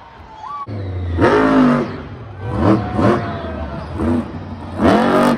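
Monster truck's supercharged V8 revving hard in about five throttle bursts, each rising sharply in pitch and then dropping away.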